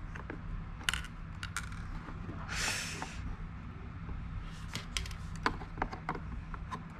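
Scattered light clicks and taps of small hard parts being handled, with a short rustling scrape about two and a half seconds in, over a steady low hum.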